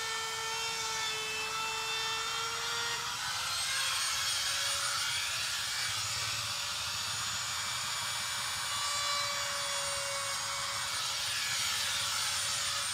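Handheld router (grooving machine) running with a steady high whine while cutting a groove into an aluminium composite panel, through the inner aluminium skin into the plastic core, for folding. Its pitch steps up slightly about three seconds in, and a hiss of cutting grows from then on.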